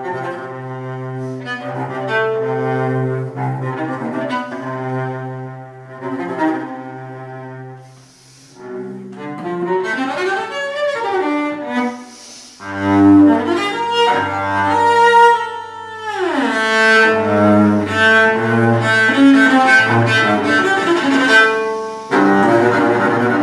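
Solo cello, bowed, playing a contemporary piece. It opens with low held notes, dips briefly about eight seconds in, then moves into faster, louder passages with a long sliding fall in pitch about two-thirds of the way through.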